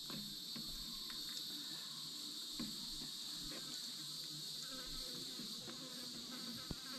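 Steady high-pitched chirring of an outdoor insect chorus, faint and unbroken. A few soft knocks come from hands rolling raw pork on a wooden cutting board.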